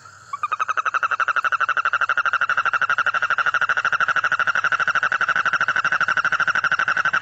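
Toad calling: one long, fast trill of evenly spaced pulses at a steady pitch, more than ten pulses a second, starting a moment in and carrying on without a break.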